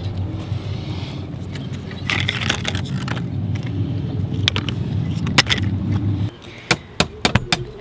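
Rotten wood deck core being pried up and handled, the soaked wood crackling, scraping and clattering as pieces break loose, over a steady low rumble. The rumble cuts off about six seconds in, leaving a few sharp clicks.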